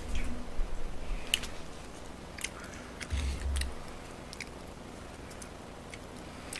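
Chewing close to the microphone, with scattered light clicks of chopsticks picking at food and wrapping it in lettuce; the soft low chewing sounds come near the start and again about three seconds in.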